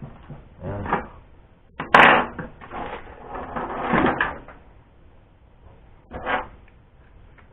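Hand tools being handled on a workbench: a sharp clatter about two seconds in, more rattling and rummaging around four seconds, and a short knock around six seconds.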